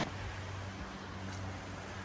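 Steady, faint rush of a creek's flowing water, with a faint low hum under it.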